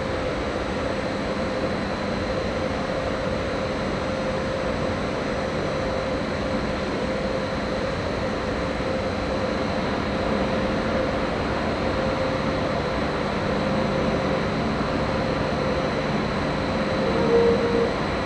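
Electric train standing at a station platform, humming steadily with a constant whir and several fixed tones; about two thirds of the way through, a deeper hum joins.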